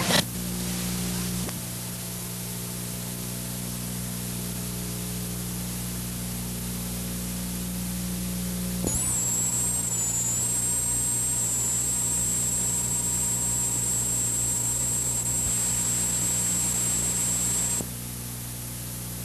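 Steady hiss and electrical hum of an old videotape soundtrack with no programme sound on it. A thin, high whine joins about halfway through and stops shortly before the end.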